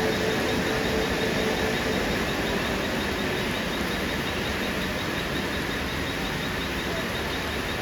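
Steady hiss of heavy rain mixed with the running of a Mumbai suburban electric local train, with a faint hum that fades out in the first two or three seconds.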